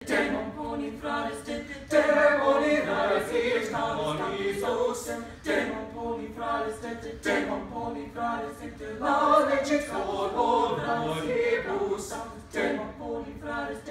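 A small mixed-voice ensemble of young women and men singing a cappella in close harmony, with no instruments. The voices sing in phrases, with short breaks between them.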